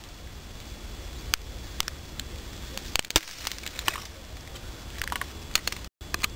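Dry dead twig on a tree trunk crackling and snapping as it is bent and broken: a series of sharp cracks at irregular intervals over a steady low rumble. The sound cuts out for a moment near the end.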